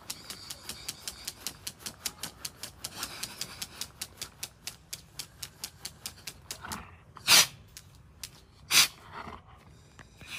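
Rapid, even crackling of a small burning firework on the floor, about seven clicks a second. The crackling dies away after about six and a half seconds, followed by two short, loud, noisy puffs about a second and a half apart.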